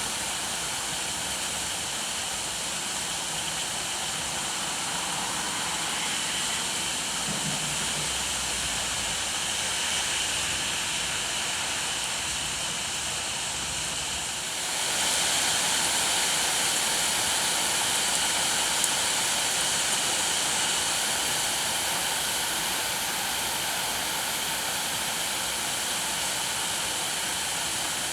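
Rain falling steadily, an even hiss of noise that gets louder about halfway through as the rain comes down harder.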